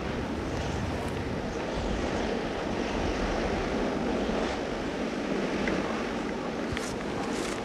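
Steady wind blowing across the microphone, a low, rushing noise with no pauses.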